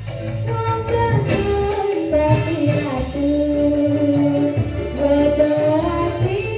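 Live dangdut band (orkes melayu) playing, with a woman singing long held, gliding notes through the sound system over keyboard, guitars, bass and drums.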